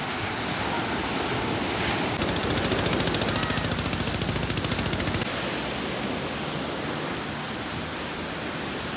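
Steady wash of ocean surf. About two seconds in, a rapid, even rattle joins it for about three seconds and stops abruptly.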